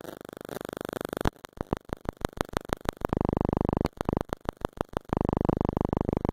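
Electronic buzzing interference on the recording. A quieter fast buzz gives way to sharp pulses about seven a second, then alternates between steady buzzing and more runs of pulses.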